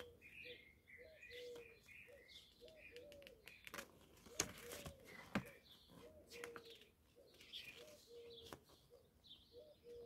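Faint birds calling: short low notes repeating over and over, with higher chirps in the first couple of seconds. A few soft clicks from the paper manual being handled come in the middle.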